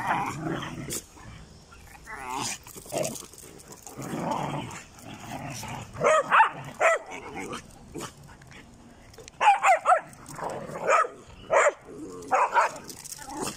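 Dogs barking in short bursts as they tussle, the loudest clusters of barks coming around the middle and toward the end.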